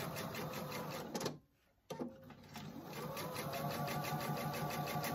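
Electric sewing machine stitching a quarter-inch seam through layered cotton fabric, its needle going at a rapid, even rhythm over a steady motor hum. The sound cuts out for about half a second a little over a second in, then the machine starts again with a rising whine as it comes up to speed and runs on steadily.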